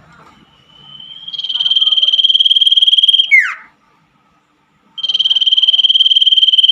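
Common iora (cipoh) singing a long, high, fast trill that swells in, holds for about two seconds and ends in a quick falling note. After a second's pause the same trill starts again and runs on.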